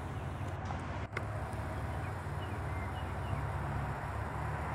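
Steady low motor-like hum, as of a distant engine, under faint outdoor background noise, with a few faint short high chirps about halfway through.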